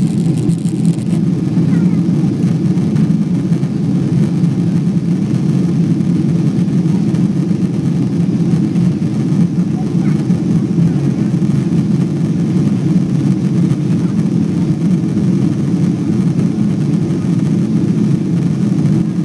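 Steady low rumble of engine and airflow noise in the cabin of a Boeing 777-200 climbing after takeoff.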